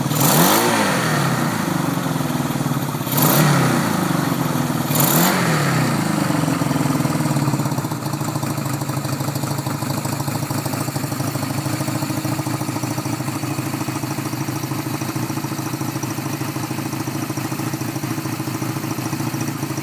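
Honda CB200's air-cooled parallel-twin engine, freshly rebuilt, blipped up and back down three times in the first six seconds, then settling into a steady idle.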